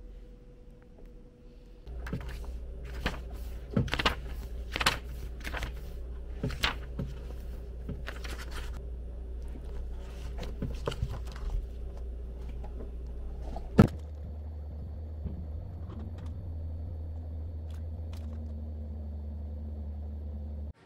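Handling sounds of a paperback book: pages rustling and leafing, with scattered clicks over a steady low room hum. One sharp knock a little past the middle.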